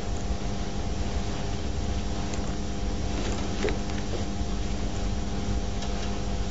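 Steady low electrical hum and hiss, with a faint soft swish about halfway through from an ink-loaded calligraphy brush stroking across xuan paper.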